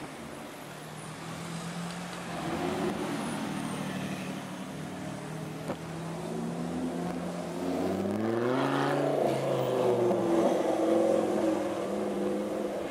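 Lamborghini Gallardo V10 running at low revs as the car rolls closer, then revving up about two-thirds of the way through and pulling away with the revs held higher.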